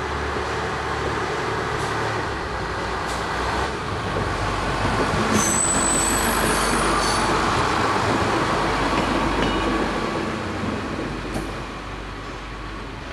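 Diesel railcar passing close by on the station track, its engine and wheels growing louder to a peak in the middle of the pass and then fading as it moves away. A brief high wheel squeal comes near the middle.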